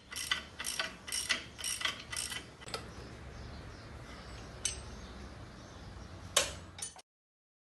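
Ratchet wrench clicking as it turns the new bolts on a Massey Ferguson tractor's front steering beam: a run of quick clicks, two or three a second, for about three seconds. Later come two single sharp metal clinks, the second the loudest, over a steady low hum.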